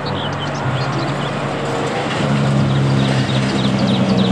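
Car-carrier truck's engine running on the road, a steady low drone over traffic noise that grows louder about two seconds in, with brief high chirps above it.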